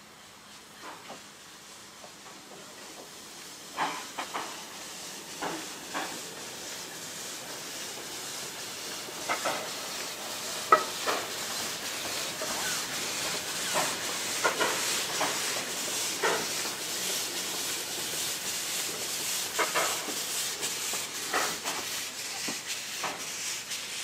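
Narrow-gauge Vale of Rheidol 2-6-2 tank steam locomotive moving slowly with its cylinder drain cocks open: a steady hiss of steam that grows louder. Scattered clanks and knocks come through it.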